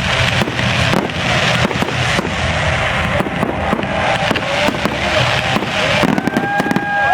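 Fireworks crackling and popping in a rapid, dense string of bangs. About six seconds in, a steady high whine with a few sliding pitches joins them.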